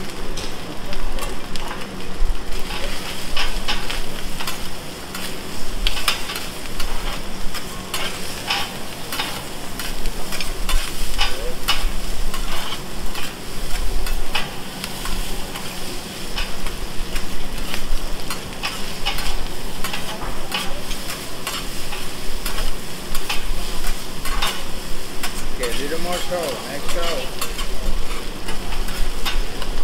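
Rice and vegetables sizzling on a hibachi steel flat-top griddle while metal spatulas scrape, chop and tap against the hot plate, giving many sharp clicks over a steady frying hiss.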